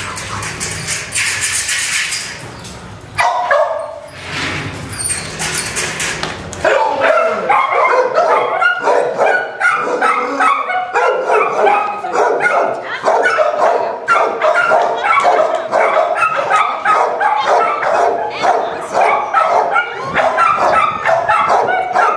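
Dogs barking and yipping in quick succession, several calls a second, starting about seven seconds in and keeping on. Before that there is a rough hissing noise.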